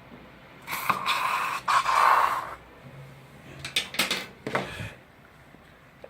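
A sputtering hiss lasting about two seconds as air and liquid are forced out of a squeezed container, typical of an ingredient spurting out. A few sharp clicks follow near the middle.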